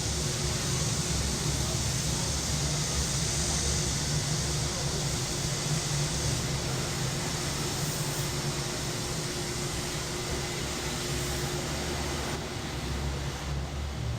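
Steady summer cicada chorus, a dense high hiss that eases slightly near the end, over a low steady rumble of city traffic or machinery.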